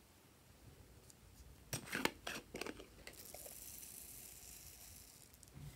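A few sharp clicks and knocks as a plastic bottle and its cap are handled, then a soft, steady high hiss of small foam beads pouring out of the bottle onto slime for about two seconds.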